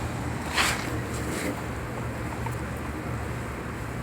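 Short rustling scrape about half a second in, with fainter ones after a second, as the small hour meter is handled and set against the plastic generator case; under it, a steady low background rumble.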